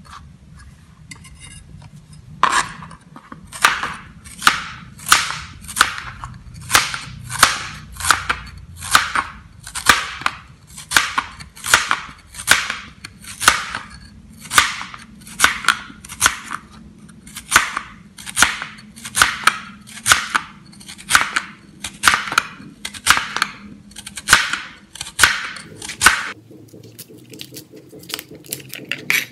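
Crinkle-cut knife slicing through carrot onto a plastic cutting board, a sharp chop with each stroke at a steady rate of about two a second. The chopping stops shortly before the end.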